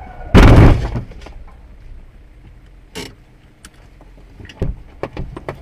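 A car collision heard from inside the dashcam car: one very loud crash about half a second in as the oncoming car strikes it. It is followed by a single knock a few seconds later and a short run of lighter knocks and clicks near the end.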